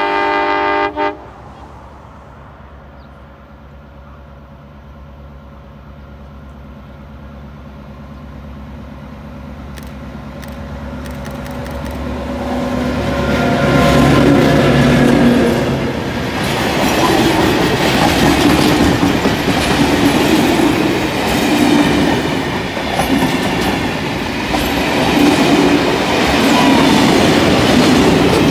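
A diesel locomotive's horn sounds one blast of about a second at the start. Then an approaching train rumbles, growing steadily louder. From about 13 s the locomotive and carriages pass close by, wheels clattering and thudding over the rails.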